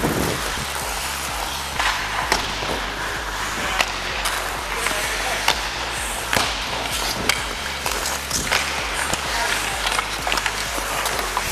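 Ice hockey skate blades scraping and carving on the ice at close range, with scattered sharp clacks of sticks and puck, heard from the skater's helmet camera.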